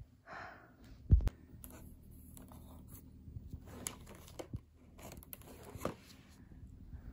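Plastic packaging rustling and crinkling as a boxed phone case is taken from a plastic delivery bag and its clear wrap is handled, with scattered light clicks. A single dull thump about a second in is the loudest sound.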